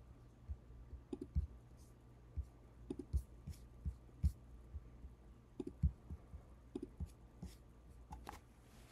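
Computer mouse being clicked and scrolled: irregular short clicks and soft low knocks, some close together in pairs.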